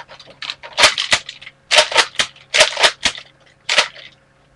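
Nerf dart blaster being primed and fired over and over with the wrong kind of ammo loaded: a quick series of sharp plastic clacks and snaps, many in close pairs. The blaster jams.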